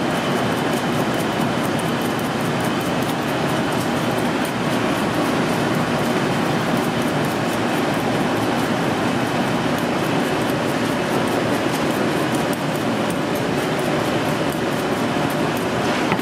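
Steady rumbling din of a commercial kitchen, with rapid fine scraping ticks of a knife peeling raw potatoes.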